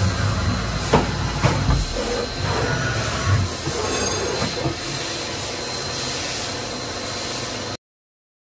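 Steady mechanical hum and hiss of a Matsuura MAM-500HF horizontal machining centre with a faint high whine, broken by a few knocks. The sound cuts off suddenly near the end.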